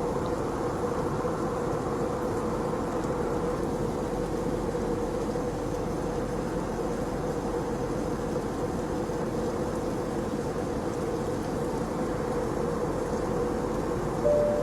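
Steady drone of an airliner cabin in flight: engine and air noise with a steady hum. A short higher tone sounds just before the end.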